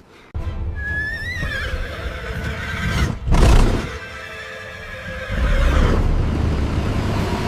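A horse whinnying, with a rising call about a second in, over background music. A loud sudden burst comes about three seconds in, and a low rumble sets in past the five-second mark.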